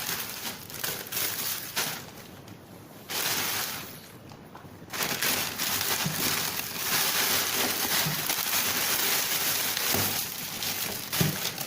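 Rustling, scraping and crinkling of a cardboard box and its packaging being opened and handled, with two short quieter pauses and a couple of knocks near the end.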